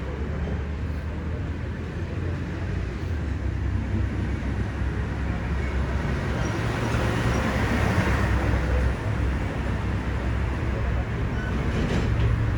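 Road traffic: a steady rumble of vehicles, swelling as one passes about eight seconds in.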